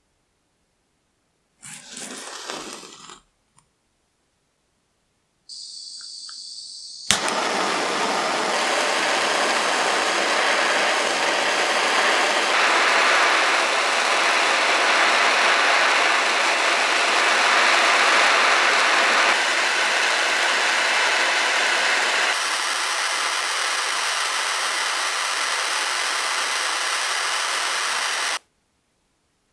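A small gas torch hissing, lit with a sharp click about seven seconds in, then burning with a steady loud rushing noise while it heats a steel chisel blade for hardening; the level shifts in steps a few times and the noise cuts off suddenly near the end.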